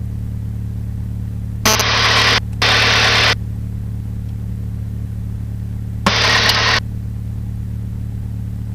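Mooney's piston engine running at low power while taxiing, a steady low drone. Three short bursts of hiss cut in and out about two, three and six seconds in.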